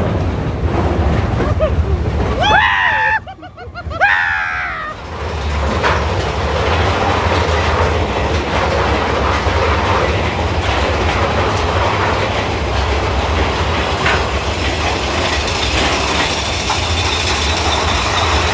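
Big Thunder Mountain Railroad's mine-train roller coaster rattling and rumbling along its track, heard from on board. About three seconds in there is a short burst of high, wavering squeals.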